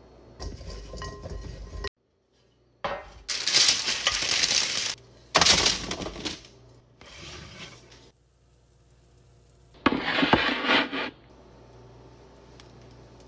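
Kitchen handling sounds in several short, separate bursts: cut delicata squash pieces tossed and then tumbled out of a ceramic mixing bowl onto a baking sheet, with clinks of bowl and spoon.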